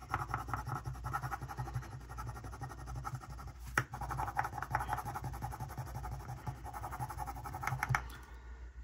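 Thin metal tool tip scratching and rubbing over paper stickers on a planner page in quick short strokes, with one sharp click about four seconds in; the scratching stops shortly before the end.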